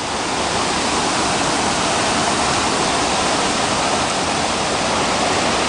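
Floodwater of a swollen creek rushing over a road and churning around a steel guardrail: a loud, steady rush of water.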